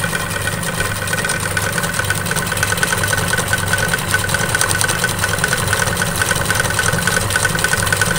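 Single-needle embroidery machine running steadily at speed, its needle stitching in a fast, even rhythm as the hooped cloth is moved by hand to fill in wave stitch.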